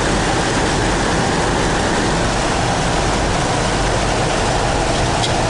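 Steady loud rushing noise inside an airliner cockpit on approach through heavy rain: slipstream and rain against the windshield, with one brief tick near the end.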